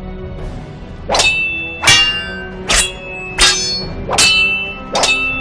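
Swords clashing in a duel: six ringing metal clangs, about one every three-quarters of a second, beginning about a second in.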